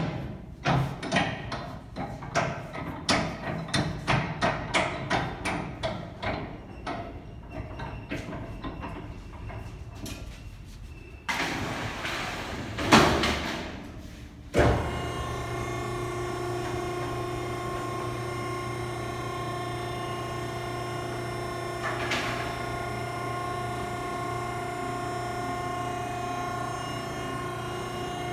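Vertical hydraulic cardboard baler: a run of metal clanks and knocks as its door is closed and locked, a burst of noise ending in a bang, then the hydraulic pump motor starting and running with a steady hum as the compacting plate travels back up.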